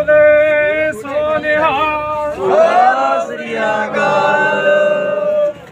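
Men's voices chanting a slogan in long, drawn-out held notes, with the pitch bending and sliding between phrases.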